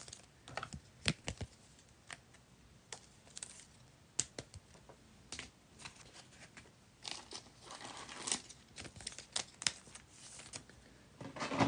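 Trading-card packaging being handled: scattered sharp clicks and taps, then plastic wrap crinkling and tearing from about seven seconds in.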